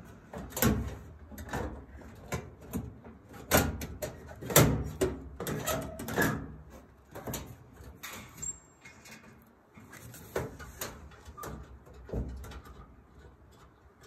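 Irregular clicks, knocks and rattles of hands working inside a gas dryer's sheet-metal cabinet, plugging wire harness connectors together. The loudest knocks come in the first five seconds, and the sounds thin out toward the end.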